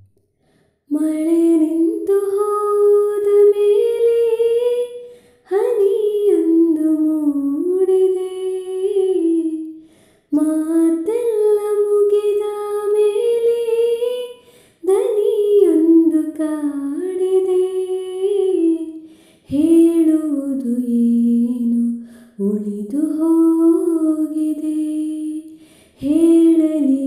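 A woman's voice singing a slow melody in long held notes, in about six phrases of four to five seconds each with short breaths between them.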